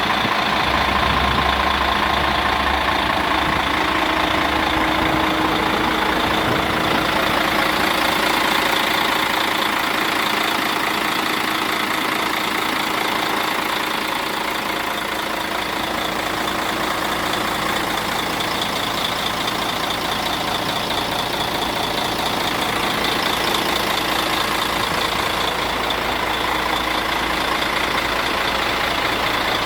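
Diesel engine of a Mercedes-Benz Axor 4140 concrete-pump truck running steadily.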